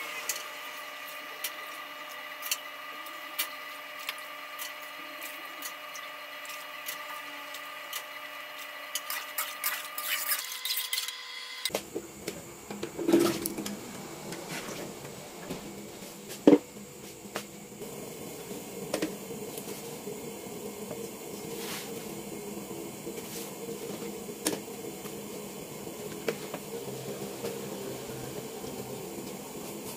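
Metal utensils knocking and scraping on an aluminium wok of curry sauce, in scattered clicks with a few louder knocks. Underneath is a steady whine that gives way about a third of the way in to a low hiss.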